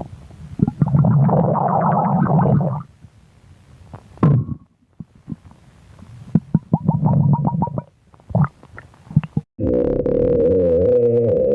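Hungry, empty human stomach rumbling: several bouts of bubbly, crackling gurgles, then a long drawn-out pitched growl near the end that wavers in pitch as it fades.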